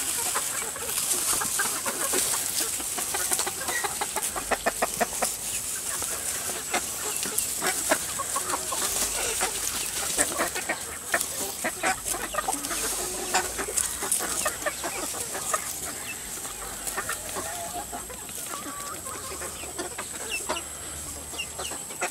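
A flock of hens clucking, with many short calls coming in quick runs.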